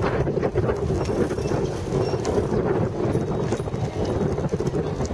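Wind buffeting the microphone as a bicycle rides along a paved cycle track, a steady low rumble dotted with irregular clicks and rattles from the bike.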